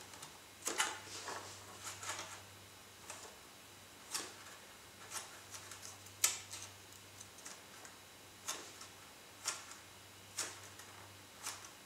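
Fingers scraping and picking at set hot glue on foam board: short scratchy ticks roughly once a second, some louder than others.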